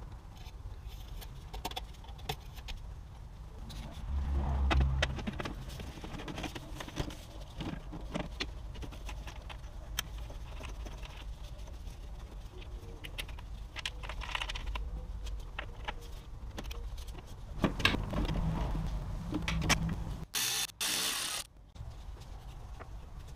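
Hand work in a car's engine bay: scattered clicks, knocks and rattles of plastic and rubber engine parts being handled and fitted, with a couple of duller thumps. Near the end comes a brief loud rush of noise lasting about a second.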